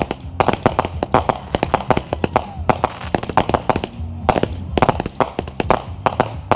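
Fireworks display: a rapid, irregular barrage of sharp bangs and crackles, several a second, each trailing off in a short echo.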